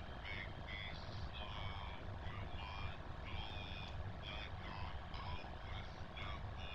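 A voice run through a toy voice changer, pitched up high and warbling in short, rapid bursts, over a steady low hum.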